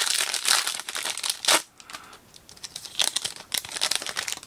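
A football-card pack's wrapper being torn open and crinkled by hand, with a sharp rip about a second and a half in. There is more crinkling of the wrapper around three seconds in.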